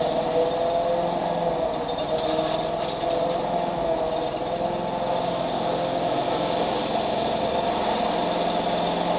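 Walk-behind petrol rotary lawn mower running steadily while it is pushed across the grass.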